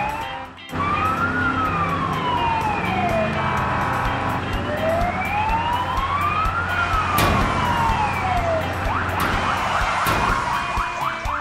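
Police car siren wailing in slow rising-and-falling sweeps, two full cycles, over a steady engine drone; near the end it changes to a quick run of short rising chirps.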